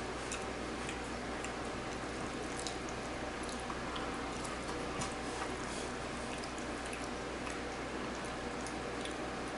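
Soft eating sounds: chewing with scattered faint wet clicks of lips and mouth, over a steady background hiss.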